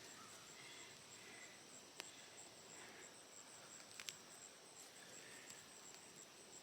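Faint, steady high-pitched insect trill, with a few sharp clicks about two and four seconds in.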